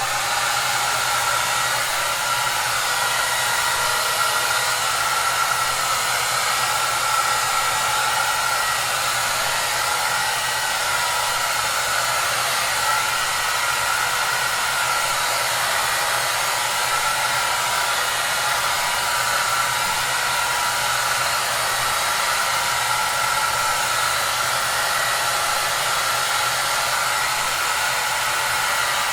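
Hair dryer running steadily: an even rushing blow of air with a faint steady whine from the motor, played as white noise.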